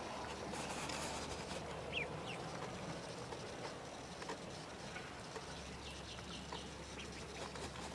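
Young ducks giving a few short, faint calls about two seconds in, over a steady low hum.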